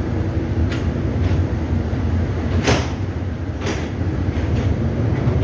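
Steady low rumble of a ship's engines heard from on board, under a wash of wind and water noise. A few short bursts of hiss cut through, the strongest about halfway through.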